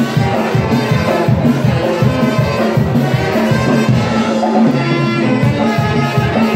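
Lively brass-band dance music with a steady beat.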